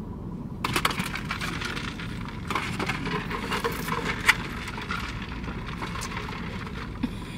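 Two people sipping fountain drinks through straws from large paper cups: a noisy slurping with many small crackles and clicks, starting about half a second in and fading out near the end.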